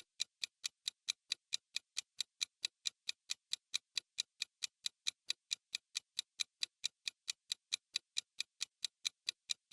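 Countdown timer sound effect: even clock ticks, about five a second, sharp and high-pitched.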